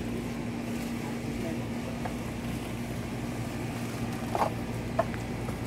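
Steady low machine hum, with two short knocks of hand tools near the end.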